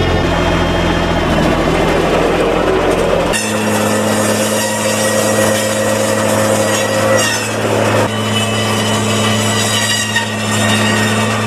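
Tractor engine running under load with a front-loader-mounted hydraulic circular branch saw spinning and cutting through hedge branches, a steady mechanical whine over the engine. The sound changes abruptly about three seconds in and again about eight seconds in.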